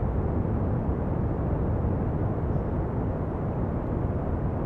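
Steady pink noise: an even, unbroken hiss, heavier in the low end.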